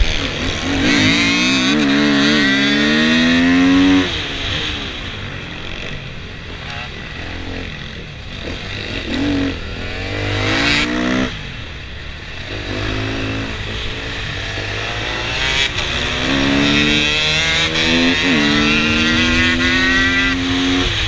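KTM 250 EXC enduro motorcycle engine heard from the rider's helmet, revving hard and climbing in pitch through the gears, with the throttle shut off sharply about four seconds in and again around eleven seconds, then pulling up through the revs once more.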